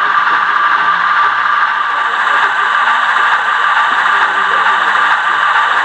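Model diesel switcher locomotive's electric motor and gears running with a steady whir and a constant high whine.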